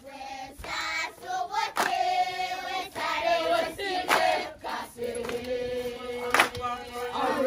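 A group of voices singing together, with a long held note in the second half and a sharp clap about every two seconds.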